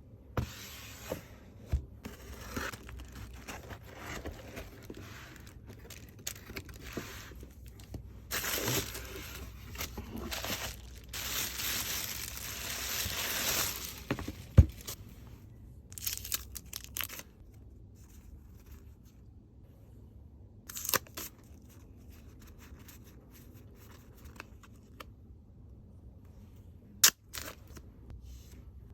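Hands tearing open and crinkling the packaging of a K-pop album, with scattered taps and clicks from handling it. The tearing and crinkling are loudest in the middle stretch, followed by quieter handling and a few sharp knocks.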